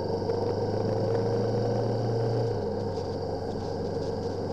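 Honda CB500X motorcycle's parallel-twin engine running steadily while riding; its note shifts slightly lower about two and a half seconds in.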